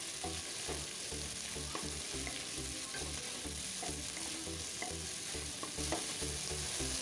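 Sliced onions and mixed vegetables sizzling in hot oil in a kadai while a wooden spatula stirs and scrapes them, with a few small clicks from the spatula against the pan.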